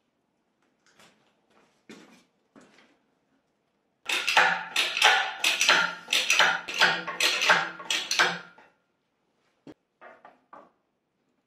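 Metal clattering and rattling for about four and a half seconds as a Vauxhall Frontera five-speed gearbox on a steel castor dolly is rolled across a concrete floor up to a Saab B234 engine. A few light knocks come before it, and a few sharp clicks follow near the end as the gearbox meets the engine.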